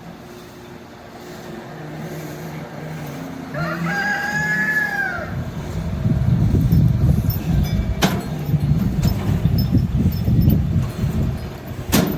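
A rooster crows once, about four seconds in: a few short notes, then one long arching note. Underneath, a low rushing rumble grows louder from about six seconds on, with two sharp clicks, one about eight seconds in and one at the end.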